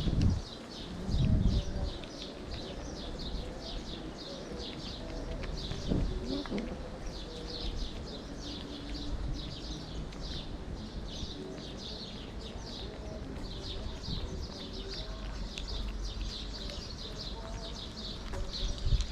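Small birds chirping continuously, many quick overlapping chirps, with a couple of low bumps near the start.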